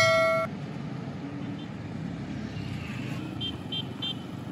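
Road traffic passing: motorcycles and other vehicles giving a steady hum of engines and tyres. It opens with the tail of a bright chime that cuts off half a second in, and near the end come three short high chirps.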